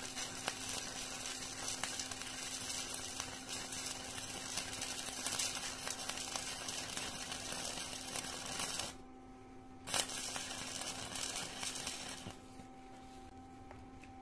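Stick-welding arc crackling steadily as the electrode runs a bead in the flat position. The arc breaks off about nine seconds in, restrikes with a sharp snap a second later, and stops for good about twelve seconds in, leaving only a steady low hum.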